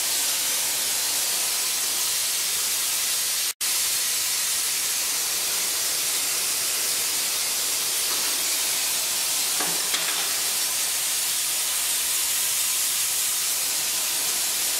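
Glassblowing torch flames hissing steadily as they heat the glass on a glass lathe. The sound cuts out for an instant about three and a half seconds in.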